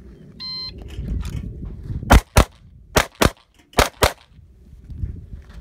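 Shot timer beep, then six pistol shots fired in three quick pairs, the two shots of each pair about a quarter second apart.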